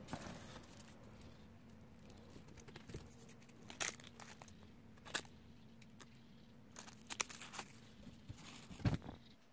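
Foam packing peanuts rustling and crinkling in a cardboard box as a hand rummages through them, in irregular bursts with a louder knock near the end, over a faint steady hum.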